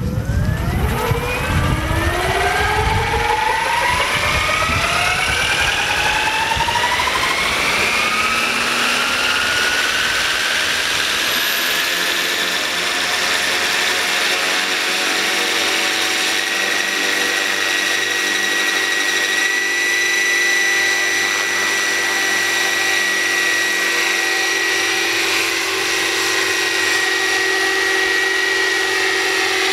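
Electric motor and rotor of a Roban Bell 429 scale RC helicopter spooling up: a whine rising steadily in pitch over about the first twelve seconds as the rotor comes up to speed. It then holds a steady high whine at flying speed as the model lifts off.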